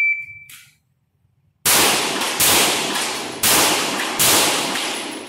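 Shot timer's start beep, then four handgun shots over about two and a half seconds, each ringing out in the reverberation of a concrete-walled indoor range.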